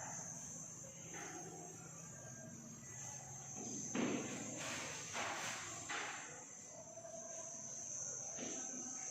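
Quiet background with a steady high-pitched drone and a few soft, faint knocks.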